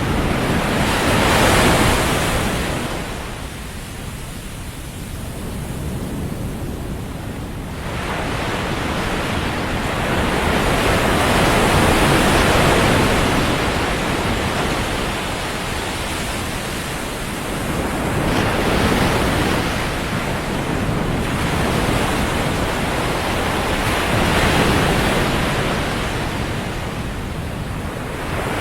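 Ocean surf: waves breaking and washing up the beach, the rush swelling and fading every several seconds.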